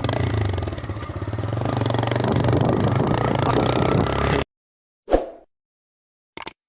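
TVS Raider 125's single-cylinder engine running through an aftermarket Lai exhaust silencer as the bike is ridden, a steady low exhaust note for about four seconds that cuts off abruptly. A short thump and two brief clicks follow.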